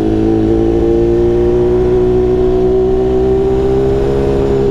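BMW S1000RR inline-four engine running at a steady note whose pitch rises slightly toward the end, over a low rumble.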